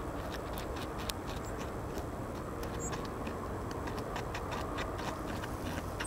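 North American beaver gnawing a tree trunk: an irregular run of sharp clicks, several a second, as its teeth cut into the wood, over a steady low background noise.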